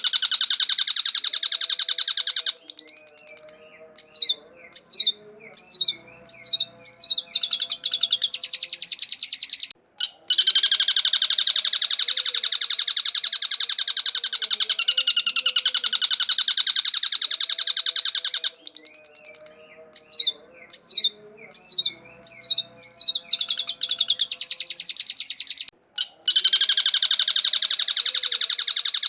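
Long-tailed shrike singing: long stretches of harsh, rapid rattling chatter alternating with runs of short separate chirps, the same sequence coming round twice.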